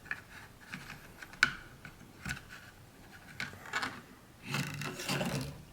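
Scattered light clicks and taps of small computer parts being handled during a PC build.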